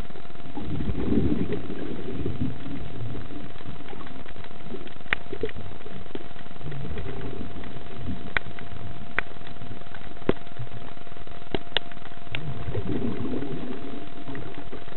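Underwater sound of a diver breathing on a regulator: a low bubbling rush of exhaled bubbles every five or six seconds. Scattered sharp clicks and a steady thin tone run underneath.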